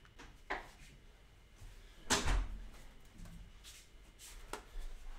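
A few knocks and bumps as a person takes off headphones and gets up from an office chair. The loudest is one thump about two seconds in, with lighter knocks after it.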